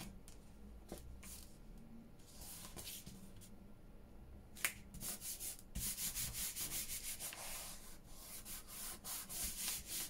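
Paper being rubbed down by hand onto card, a dry scraping rustle in quick repeated strokes that starts about halfway through after a small click; the first half is quieter, with a few faint clicks and taps.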